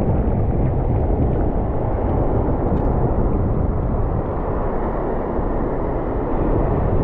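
Steady wind rumbling and buffeting on the microphone outdoors, low and even throughout.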